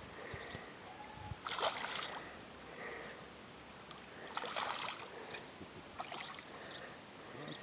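Hooked fish thrashing and splashing at the surface as it is played on a rod close to the bank, with two bursts of splashing about one and a half and four and a half seconds in.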